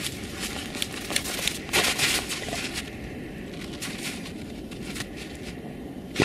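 Dogs digging in snow and frozen ground: paws scraping and crunching in a run of irregular sharp scratches, with a louder scrabbling burst about two seconds in.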